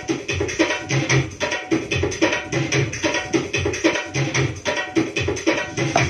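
Electronic sampler pad playing a fast, steady drum pattern of percussion samples: quick sharp strikes several times a second over deep bass thumps that recur about once a second.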